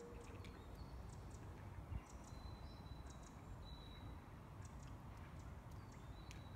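Faint, high chirps and thin whistled notes of small birds, each short, over a steady low rumble of background ambience.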